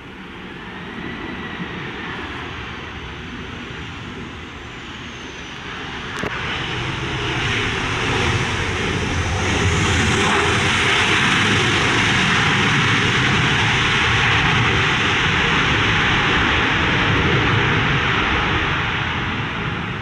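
A Japan Airlines Boeing 737-800's turbofan jet engines running loud on the landing rollout: a steady rush of jet noise that swells as the airliner rolls along the runway and stays at its loudest through the second half, then cuts off at the end.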